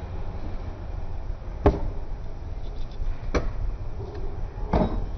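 Homemade pneumatic spot welder for 18650 battery cells, built around a microwave-oven transformer, working on a nickel strip. Three sharp clicks come about a second and a half apart, the last a little longer, over a steady low hum.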